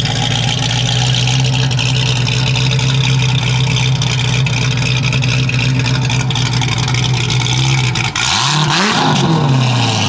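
Chevrolet Corvette ZR1's V8 idling with a choppy, lopey cammed idle, then revved up and back down once about eight seconds in.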